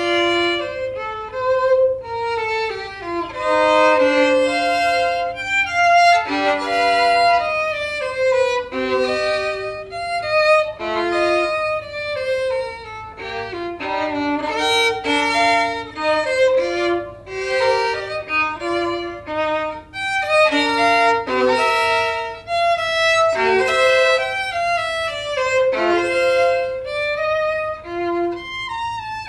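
Solo violin, bowed and unaccompanied, playing a flowing melodic passage that moves steadily from note to note.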